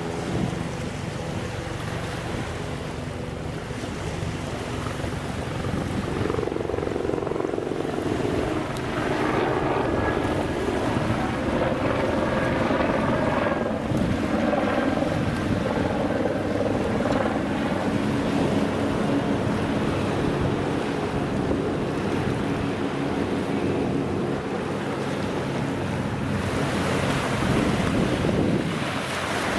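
Wind buffeting the microphone and small waves washing on a sandy beach, with the steady low hum of a large vessel's engine running offshore.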